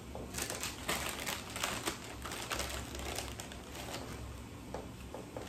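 A plastic chip bag crinkling as it is picked up and handled, in a run of irregular crackles that is busiest in the first three seconds.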